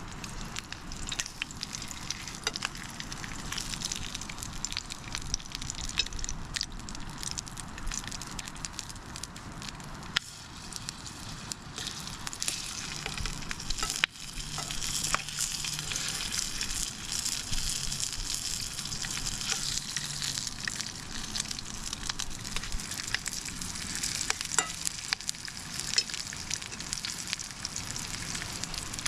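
Cheddar bratwursts sizzling and spitting as they cook over a campfire, with many small crackles. The sound breaks off and resumes abruptly about ten and fourteen seconds in.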